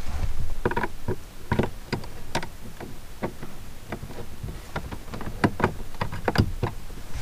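Irregular clicks, taps and knocks of hands working at a solar charge controller and its wiring, over a low rumble.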